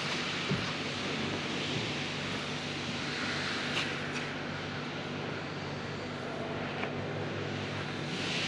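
Nissan Leaf rear wheel spun by pulling a seatbelt strap around the tyre, its wheel bearing giving a steady drone with a few light clicks as the strap works. This is the suspect rear right bearing, which turns out to be the noisy one.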